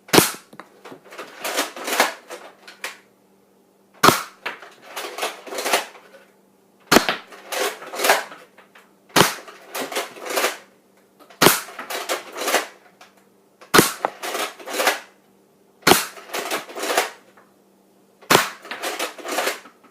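Buzz Bee Air Warriors Ultra Tek Sentinel spring-powered foam dart blaster fired eight times, roughly every two to three seconds. Each sharp pop is followed by a second or two of rattling clicks as the lever-action prime is cycled for the next dart.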